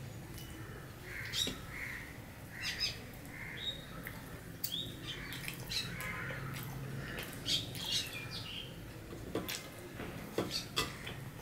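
Close-up mouth sounds of a man chewing roti, with scattered wet clicks and lip smacks, and a few short, high chirps among them.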